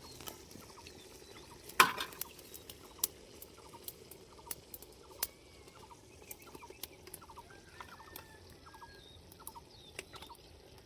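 Chickens clucking softly in quick, repeated short calls, with occasional sharp clicks.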